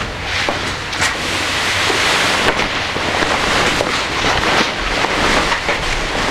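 Fabric car cover rustling as it is handled and pulled off a car, close to the microphone.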